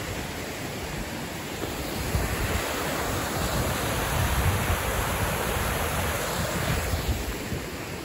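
Rushing water of a stream cascading over rock ledges, a steady hiss that swells for a few seconds in the middle. Wind buffets the microphone.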